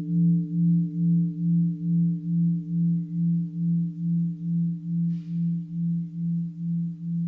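A mindfulness bell of the singing-bowl kind, ringing on in a long low hum that wavers about two and a half times a second and slowly fades.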